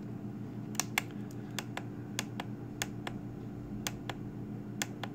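Buttons on a FrSky Taranis X9D Plus radio transmitter clicking as its menu pages are stepped through: about ten short, irregular clicks over a steady low hum.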